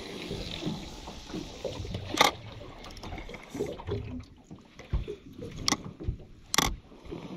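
Water slapping and trickling against the hull of a drifting boat, with a few sharp slaps, the loudest about two seconds in.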